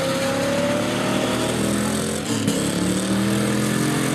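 Early-1960s Ford station wagon's engine being revved hard as the car is driven across a grass paddock, its pitch rising, dropping sharply about two seconds in, then rising again.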